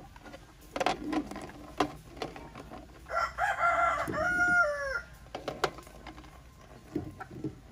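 A rooster crows once about three seconds in, a call of about two seconds that ends in falling notes. Around it come light knocks of chicken eggs being set down in an aluminium pot.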